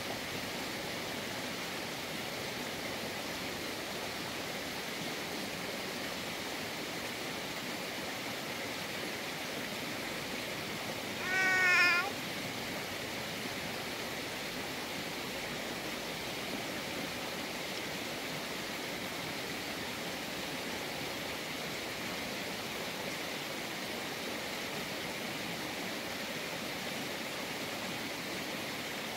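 Steady hissing noise throughout, with one short, wavering, pitched call of under a second about eleven seconds in.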